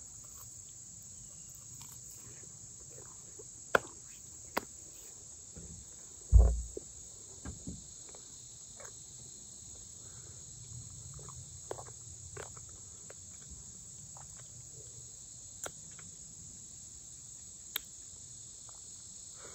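Steady high-pitched chorus of crickets and other insects, with scattered small clicks of chewing and one low thump about six seconds in.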